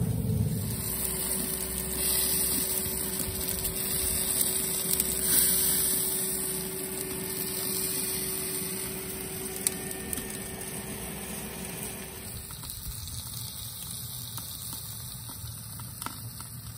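Propane salamander broiler (JJ George B.B. Prime) running with a steady rushing hiss while steaks sizzle under its burner. A low steady hum underneath stops about twelve and a half seconds in, and the whole sound slowly gets quieter.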